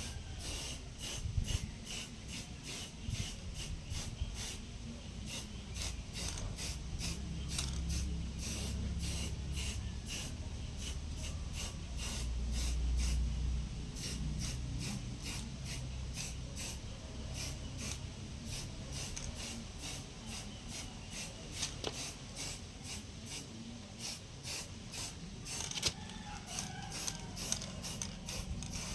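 Homemade coconut grater driven by a washing-machine motor, running and scraping coconut meat: a steady low motor hum under a rasping scrape that ticks about two to three times a second.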